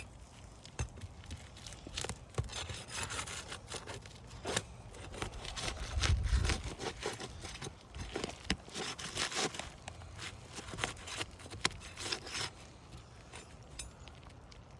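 Flat pry bar scraping and rubbing under asphalt roof shingles, with irregular clicks and scrapes as the shingle seals are worked loose.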